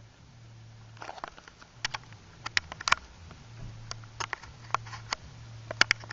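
HO-scale model train running on its layout: a steady low hum with irregular sharp clicks and clacks starting about a second in.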